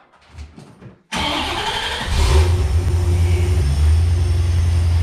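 A 1991 C4 Corvette's V8 cranked by the starter about a second in and catching a second later with a brief rev, then settling into a steady idle.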